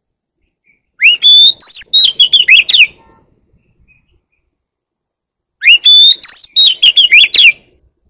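Oriental magpie-robin singing two loud phrases, each about two seconds long and a few seconds apart. Each phrase opens with a rising whistle and runs into quick, varied whistled notes, and the second phrase repeats the pattern of the first.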